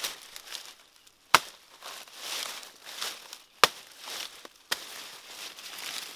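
Large knife chopping into a banana tree trunk: three sharp chops, the first two loudest, with dry leaves rustling and crackling as the trunk is handled between them.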